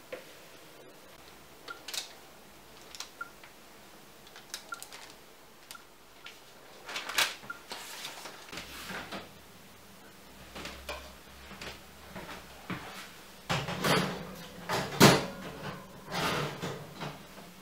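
Kitchen handling sounds: light scrapes and taps as sponge batter is poured and spread with a spatula on a parchment-lined metal baking tray. Near the end comes a cluster of louder knocks and clatter, like a door or cupboard being worked.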